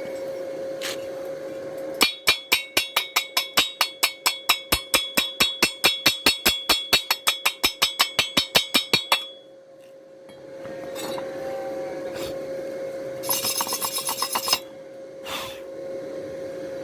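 Chipping hammer knocking slag off a fresh stick weld on thin steel square tube: a long run of quick, even strikes, about five a second, with the hollow tube ringing. After a pause comes a shorter, faster run of taps and one last knock, all over a steady hum.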